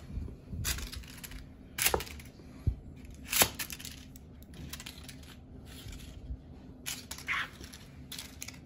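Metallic foil crinkle-ball cat toy crackling as it is batted and skitters over a hardwood floor, in a string of short crinkly bursts, loudest about two and three and a half seconds in. There is a single light knock between them.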